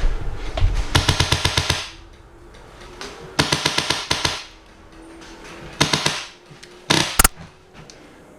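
Airsoft electric guns firing full-auto in four short bursts of rapid clicks, each lasting under a second, with pauses between them.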